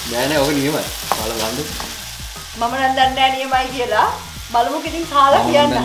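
Risotto rice sizzling in a nonstick frying pan while a wooden spoon stirs and scrapes it, with white wine cooking off in it. Wavering pitched tones, like a voice humming, come and go over the sizzle and are the loudest part.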